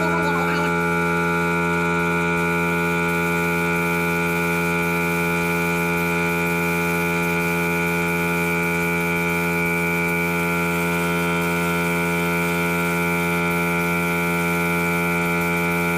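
Dynatec air compressor's motor and pump running steadily, a constant mechanical hum, working to refill the tank while air is drawn off through the spray gun.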